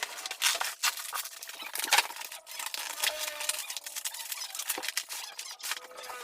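Rapid, irregular clicks, scrapes and rustles of a package being handled and cut open, with a faint wavering tone underneath.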